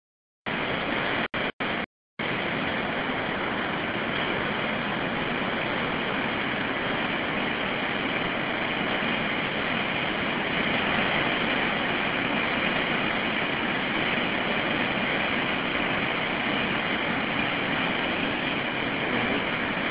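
Steady rush of a river in flood, its swollen water running fast over rapids. The sound cuts out briefly a few times in the first two seconds.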